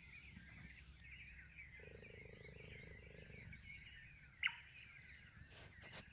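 A cheetah purring: a faint, low, continuous rumble, with birds chirping lightly over it. One short, sharp, high chirp stands out about four and a half seconds in.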